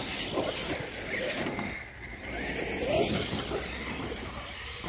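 Electric radio-controlled trucks driving on a gravel track: brushless motors whining up briefly under throttle, about half a second in and again about three seconds in, over a steady rushing noise.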